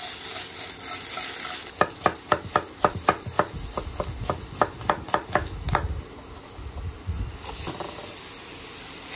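Chef's knife dicing an apple on a wooden butcher-block board: a quick run of sharp knocks, about three to four a second, from about two seconds in until about six seconds in. Under it, onions sizzle in butter in a stainless pan.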